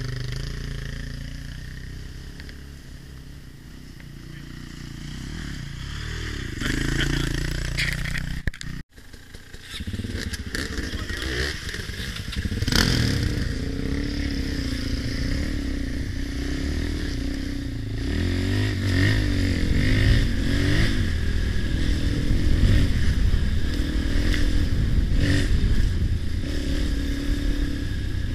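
Dirt bike engines. For the first several seconds an engine runs at low revs while another bike approaches and grows louder. After an abrupt break about nine seconds in, the rider's own dirt bike runs under load along a rough trail, its revs rising and falling.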